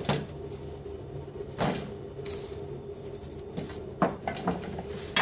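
A few dull knocks of hands and a stuffed naan dough ball pressed against a floured stainless-steel counter, spaced irregularly, over a steady kitchen hum.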